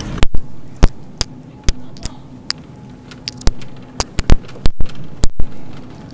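A series of sharp, irregular clicks and knocks, about two or three a second, over a faint steady hum.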